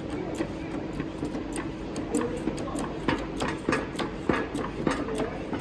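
Hydraulic hand pump being worked to build pressure in a hydraulic bolt tensioner: a run of quick, irregular mechanical clicks and ticks from the pump and its handle.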